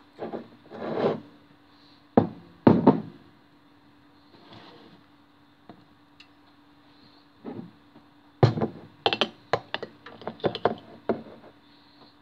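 Sharp knocks and clicks of a table knife and toast handled on a wooden chopping board: two hard knocks a couple of seconds in, then a quick run of clicks and taps in the second half.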